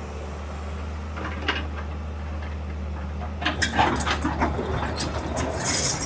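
Steady low hum of a heavy demolition machine's engine running. From about three and a half seconds in comes a run of short sharp sounds, thickest and loudest near the end.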